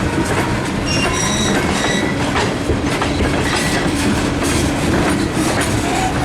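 Freight train of ethanol tank cars rolling past on the curving connector track: a steady rumble and clatter of wheels over the rails, with short high-pitched wheel squeals, most of them about one to two seconds in.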